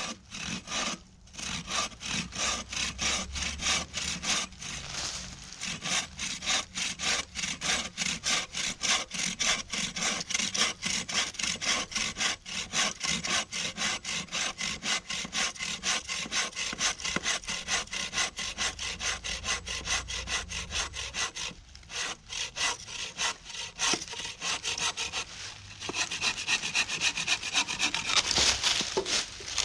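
Hand saw cutting through wood in quick, steady back-and-forth strokes, with a couple of short pauses in the second half before sawing resumes.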